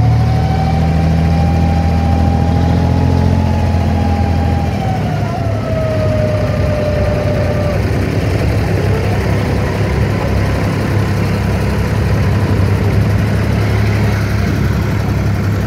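An abra's diesel engine running steadily, with a thin whine over the hum. The engine note shifts about five seconds in, and the whine falls and fades out a few seconds later.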